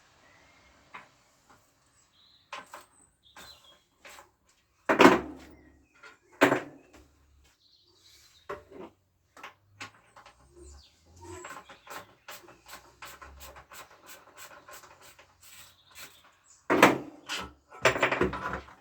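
Workshop handling of scooter parts and hand tools during dismantling: scattered knocks and clatters, the loudest about five seconds in and again near the end, with a quick run of small clicks in the middle. The engine is not running.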